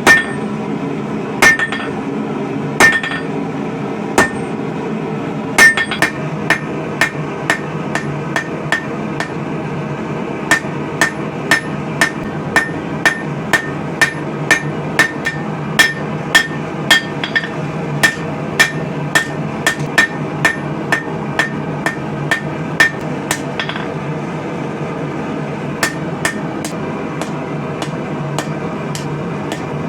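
Hand hammer striking hot steel on an anvil, each blow ringing briefly. A few spaced blows come first, then a steady run of about two blows a second, a pause near the end, and a few more blows, over a steady low background rumble.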